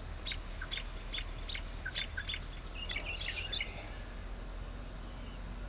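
A songbird calling: a quick run of short, high chirps, then a brief jumbled warble about three seconds in, over a steady low hum.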